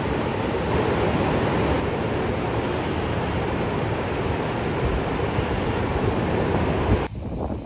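Heavy rain pouring down, a steady dense hiss that cuts off abruptly about seven seconds in.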